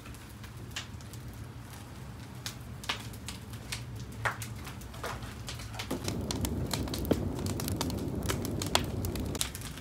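Wood fire burning in clay tandoor ovens, crackling with many sharp pops. About six seconds in, a deeper rushing of the flames grows louder under the crackle.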